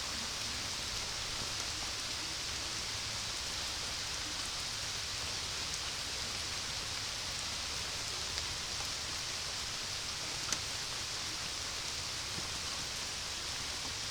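Steady rain falling, an even hiss with a few faint ticks of drops, the clearest about ten and a half seconds in.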